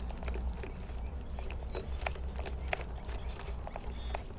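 Steady low wind rumble on the microphone with scattered light clicks and ticks, several a second at irregular spacing.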